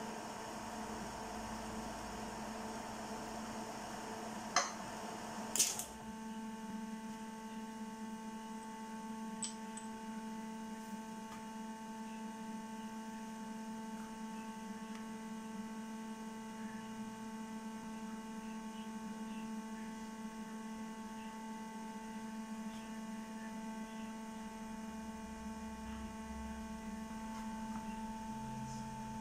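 Milling machine running with a steady hum and a faint whine. Two sharp knocks come about five seconds in, and after them only the steady hum remains.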